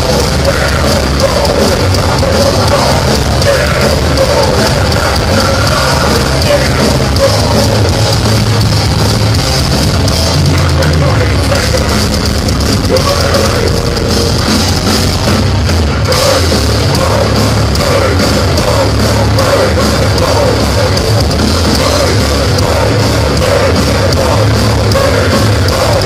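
Live heavy metal band playing loud and dense: distorted guitars, bass and drums under a screamed vocal, heard from within the crowd.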